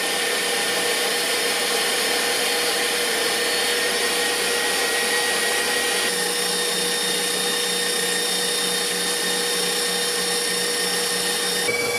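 Electric stand mixer running steadily at top speed, whipping egg whites while hot sugar syrup is poured in for Italian meringue. Its motor whine shifts slightly in tone about halfway through.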